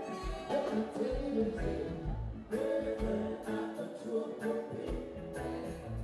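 Reggae band playing live, a man singing lead over electric guitars and a steady drum beat.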